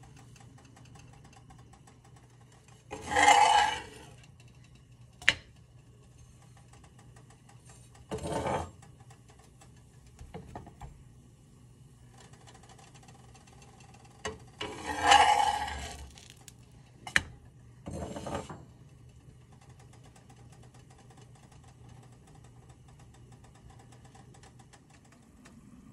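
Kitchen handling noises at a stovetop cast-iron skillet over a steady low hum: two louder clattering noises about a second long, a few seconds in and about halfway through, plus a few weaker ones and two sharp clicks.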